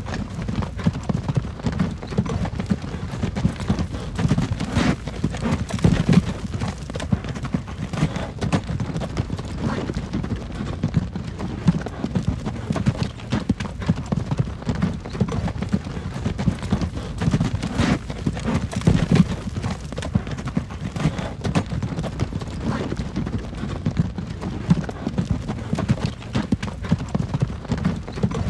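A horse-drawn wooden wagon rolling along: hooves clip-clopping over a steady low rumble of the wheels, with constant irregular knocks and rattles.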